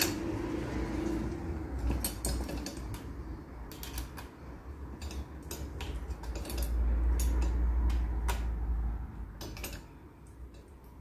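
Front wheel holder being fastened to a bike rack deck with an Allen key: scattered clicks and clinks of the key and hardware against the fittings, over a low rumble of hands handling the rack, which drops off near the end.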